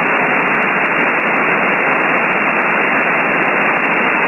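Shortwave radio hiss from a software-defined radio receiver tuned to the 20-metre amateur band in upper sideband: steady band noise passed through the receiver's narrow voice filter, with no station on the frequency.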